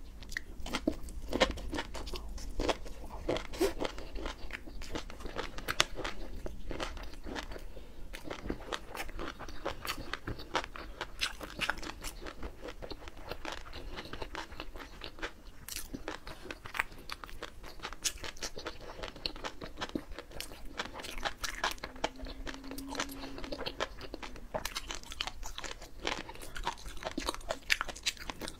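Close-miked chewing of raw shrimp coated in flying fish roe: a dense, continuous crackle of tiny crunches and pops as the roe bursts between the teeth.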